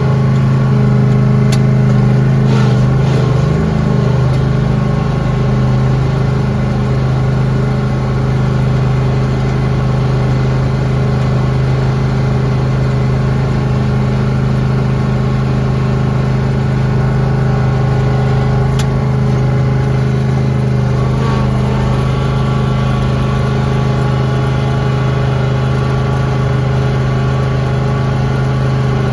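Lawn tractor engine running steadily at a constant speed, with two brief sharp clicks, one near the start and one about two-thirds of the way through.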